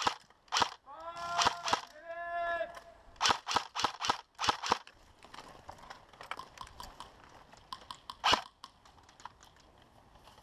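Airsoft guns firing sharp single pops in quick, irregular groups, densest in the first five seconds, then fainter scattered shots and one loud pop at about eight seconds. About a second in, a voice calls out twice in long, drawn-out shouts.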